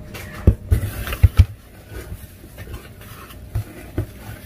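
Groceries being handled in a cardboard box: a quick run of dull thumps and knocks about a second in, with packaging rustling, then two lighter knocks near the end.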